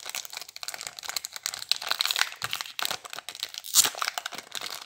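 Foil trading-card pack being torn open and pulled apart by hand: irregular crinkling and crackling of the foil wrapper, with one sharper crackle near the end.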